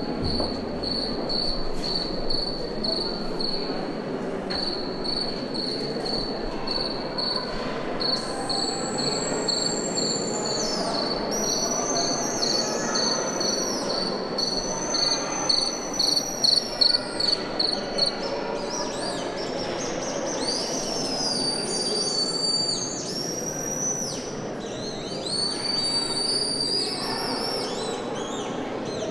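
A high chirp pulsing about twice a second, then, from about a third of the way in, high whistling tones that slide and jump between pitches. Under them runs a steady hubbub of a standing crowd.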